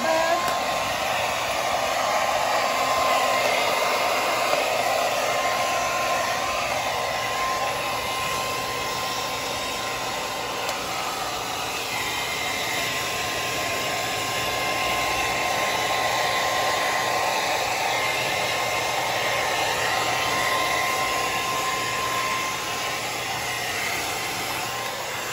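A Revlon hot-air brush dryer running steadily, a rush of air with a constant whine, as it blows through a dog's thick fur to dry it.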